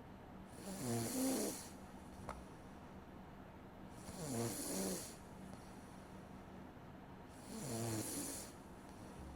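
A person snoring in sleep: three snores about three and a half seconds apart, each lasting about a second.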